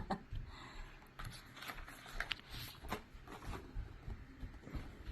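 Faint handling noise: scattered light clicks and rustling as the smartwatch and its band are handled.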